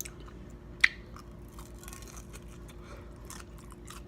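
A person chewing a deep-fried Oreo close to the microphone: soft, irregular crunching and mouth clicks, with one sharp, loud crunch a little under a second in.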